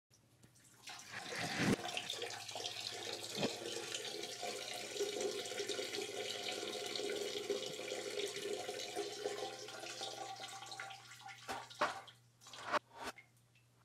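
Water running from a tap into a sink, starting about a second in and stopping near the end, followed by a few sharp knocks.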